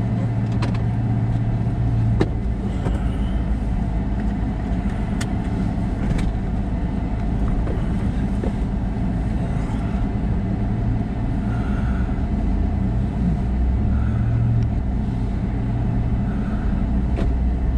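A car running steadily, a low, even engine hum, with a few light clicks scattered through it.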